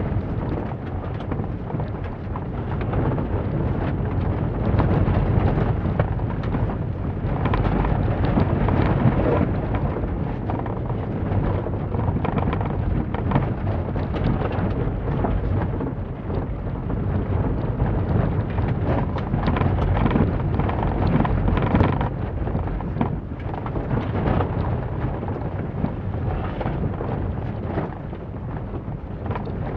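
Inside the cabin of a 2006 Holden Barina driven hard on a khanacross course: the four-cylinder engine and a heavy rumble of tyres and loose surface through the body, swelling and easing every few seconds with many short rattles and crackles.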